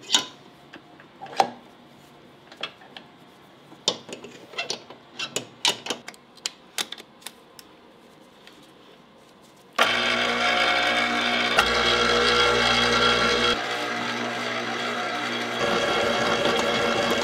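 Metal clicks and clanks as a stainless steel bowl and dough hook are fitted onto a commercial planetary stand mixer. About ten seconds in, the mixer's motor starts suddenly and runs steadily, its hook kneading bread dough, with the level stepping down and back up partway through.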